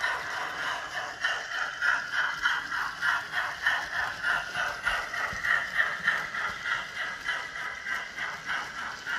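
Model steam locomotive's DCC sound decoder chuffing in an even beat, with the small wheels of a goods train rattling along the track.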